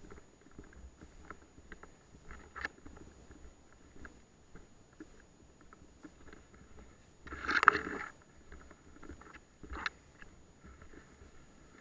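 Footsteps and rustling through dry leaf litter, with scattered small clicks and knocks. About seven and a half seconds in comes one much louder short crash of noise, with smaller sharp clicks near the start and near the end.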